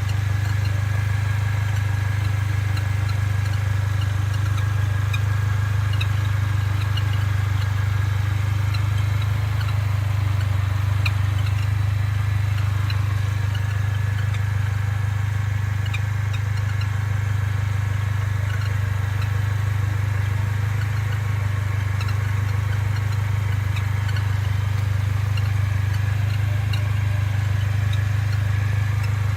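Mercedes-Benz A45 AMG's turbocharged four-cylinder running at a steady, even drone, with faint short high ticks scattered throughout. The car is warm, and the owner hears an unidentified bird-like chirping noise from it.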